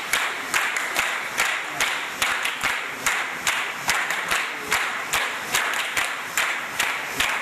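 A crowd clapping in time together, about two to three claps a second, over the hubbub of many people in the room.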